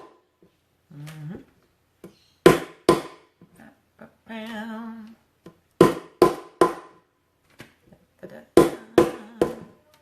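Knife chopping on a cutting board in short runs of two or three sharp strokes, with a brief hummed phrase about halfway through.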